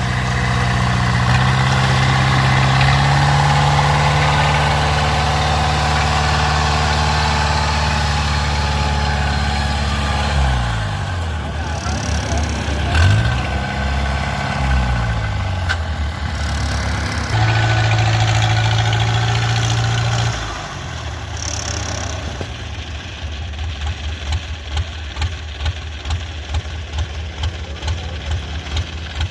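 Engine of a rice-harvesting machine running steadily. Around the middle its speed drops and rises again a few times, then it settles to a quieter, uneven chugging idle over the last third.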